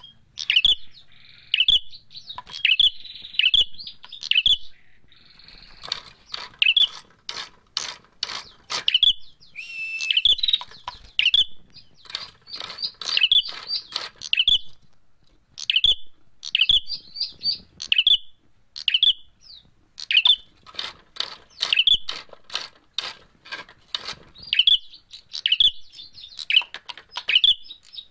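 Caged prenjak merah calling in quick bursts of sharp, high chirps, with runs of dry clicks in between.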